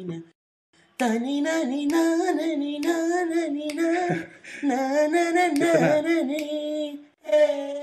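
A solo voice singing a drawn-out, bending melody. It starts after a short pause about a second in and ends with one short held note near the end.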